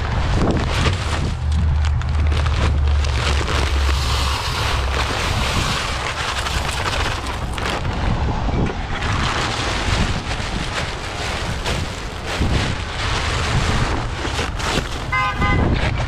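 Wind buffeting the microphone over the low, steady drone of a pickup truck on the move. A short pitched beeping, like a horn tooting, comes near the end.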